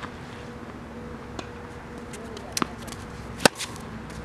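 Tennis ball being hit back and forth with racquets: a few sharp pops of racquet strikes and ball bounces, the loudest about three and a half seconds in.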